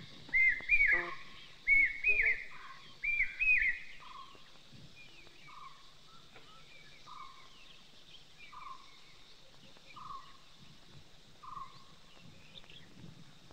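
High whistled calls that rise and fall, loud and in quick pairs for the first four seconds. After that come softer single lower notes, about one every second and a half.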